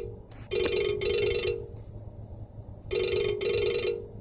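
Phone ringtone for an incoming call, ringing twice, each ring about a second long and about two and a half seconds apart.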